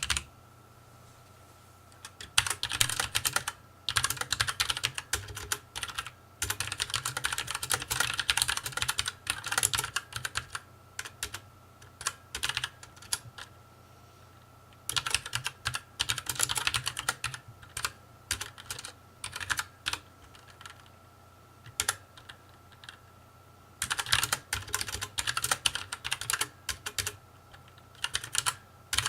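Typing on a Nixeus Moda V2 tenkeyless mechanical keyboard with brown switches: bursts of rapid key clatter separated by pauses of a second or two.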